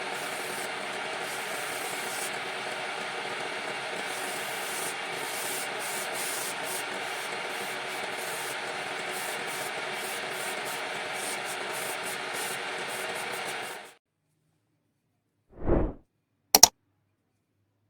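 Sandpaper rubbing on a wooden workpiece spinning on a lathe: a steady hiss over the faint hum of the lathe, which cuts off suddenly about 14 seconds in. Then comes a short low swell and a sharp click near the end.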